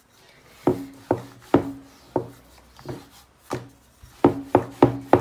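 Wooden rolling pin and round wooden rolling board knocking with each stroke as dough is rolled out thin. A few spaced knocks come first, then a quicker run of about three a second from about four seconds in.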